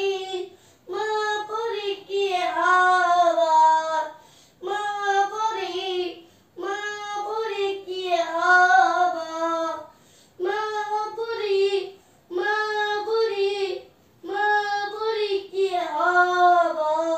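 A young boy singing unaccompanied, in short held phrases with brief pauses between them.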